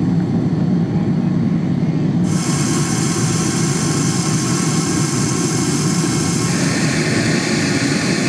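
Heavy engine running with a steady low rumble; a steady rushing hiss joins it about two seconds in.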